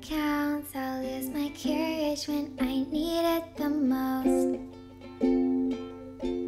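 Ukulele playing with a voice singing along.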